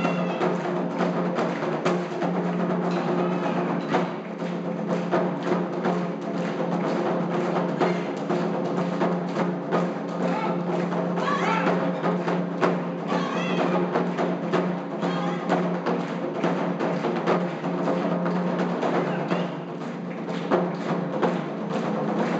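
Japanese taiko drum ensemble playing, with a dense, continuous rhythm of drum strokes.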